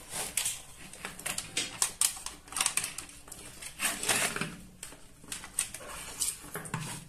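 Irregular clicks and light clatter from a CRT TV power-supply circuit board and multimeter test leads being handled and shifted on a workbench.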